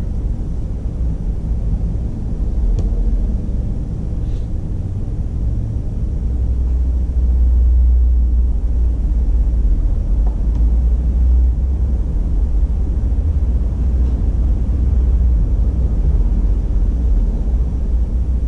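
A low, steady rumble that swells a little about seven seconds in, with a few faint clicks.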